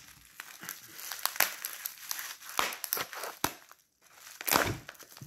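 Plastic bubble wrap crinkling and crackling in irregular bursts as it is handled and pulled open by hand, with a duller knock near the end.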